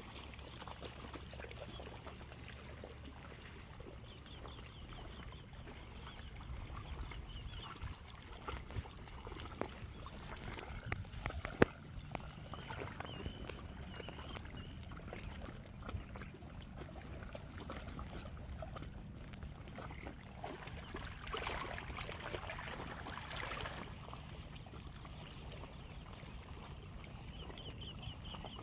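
Outdoor lakeshore ambience: wind rumbling on the microphone, with a bird calling in short rapid trills a few times. A single sharp click about twelve seconds in and a rustling stretch a little over twenty seconds in stand out above it.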